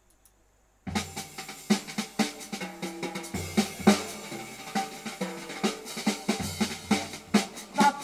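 Jazz recording played back through a homemade three-way Fostex speaker system in long TQWT enclosures, heard in the room. A drum kit and bass start about a second in after near silence and keep a steady rhythm.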